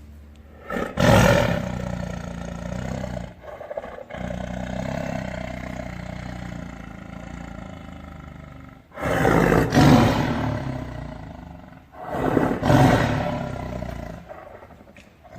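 A tiger roaring: three loud roars, about a second in, around 9 to 10 seconds and near 13 seconds. The sound runs on more quietly between the first and second roar.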